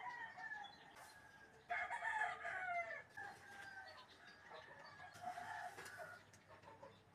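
Roosters crowing, several crows one after another; the loudest comes about two seconds in and lasts about a second.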